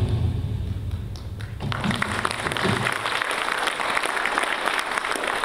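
Audience applauding, starting about two seconds in, as the last low note of the video's music fades away.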